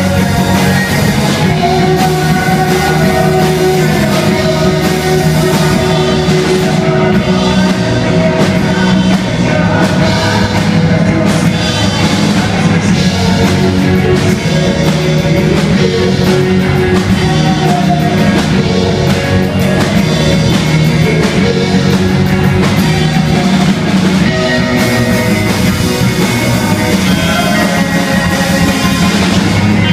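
Live rock band playing loud and without a break: electric guitars, bass guitar and a drum kit.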